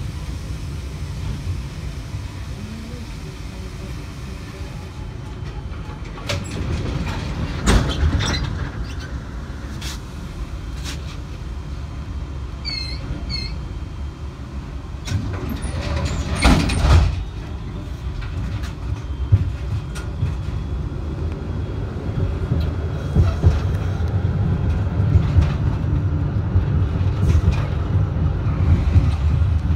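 Tram running on street track: a steady low rumble of wheels and motors with sharp clanks over rail joints and points. A louder clatter about halfway through as another tram passes close by on the neighbouring track.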